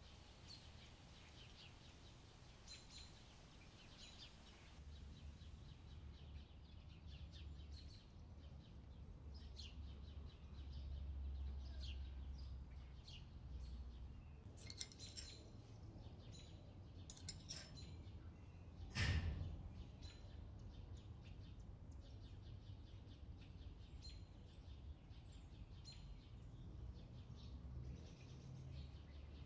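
Faint, scattered bird chirps over a low steady rumble, with a few sharp clicks in the middle and one brief louder knock about two-thirds of the way through.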